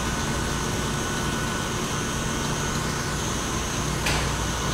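Stand mixer running steadily with its whisk beating Italian meringue as it cools, a steady mechanical hum. A single sharp click near the end.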